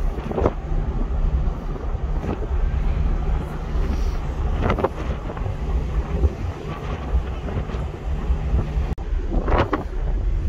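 Wind buffeting the microphone in gusts on a ferry's open deck, over a steady low hum from the ship's engines.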